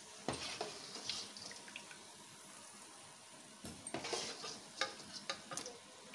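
Pakoras deep-frying in hot oil in a karahi, a steady sizzle, with a metal wire skimmer and slotted spoon clinking and scraping against the pan several times as the fried pakoras are lifted out.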